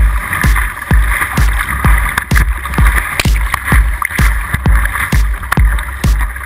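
Background music with a steady electronic kick-drum beat, about two beats a second, over a steady hiss.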